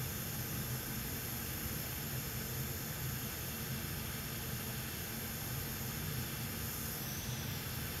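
Steady hiss over a low hum from running workbench equipment, unchanging throughout.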